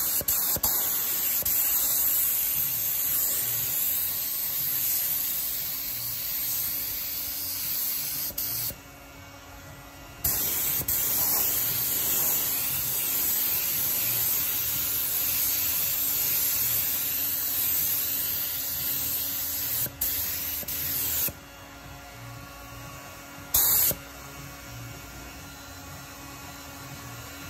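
HVLP gravity-feed paint spray gun spraying, a steady hiss of air and atomised paint in long passes. The first pass lasts about nine seconds. After a pause of a second and a half comes a second pass of about eleven seconds, then one short blip a couple of seconds later.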